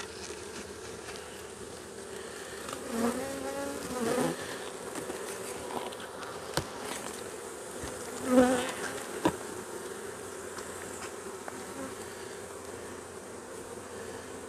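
Swarm of honeybees from an opened nuc box buzzing steadily, swelling louder about three seconds in and again about eight seconds in as bees fly close. A couple of light knocks in between, from frames being handled.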